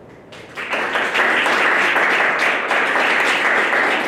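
Audience applause, starting about half a second in and building to a steady, dense clapping.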